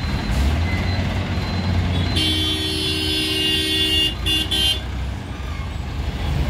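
A vehicle horn sounds twice: a long blast starting about two seconds in, then a short one. Underneath is a steady low engine rumble from street traffic.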